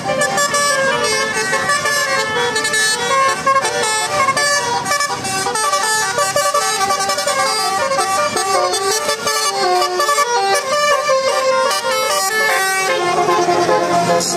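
Bus 'telolet' horn, a multi-tone horn playing a rapid melody of short notes that step up and down in pitch, several tones sounding together.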